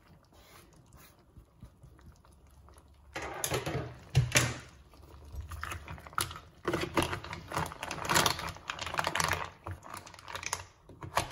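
Mussel shells clicking and rattling against each other and the stainless steel saucepan as they are stirred with a wooden spoon in a cream sauce. The clicking comes in bursts from about three seconds in and is densest in the second half.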